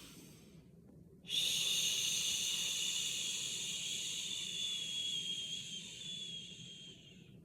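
A woman exhaling on a long, steady 'shh' as a breathing exercise. It starts about a second in, lasts about six seconds, eases a little and then stops.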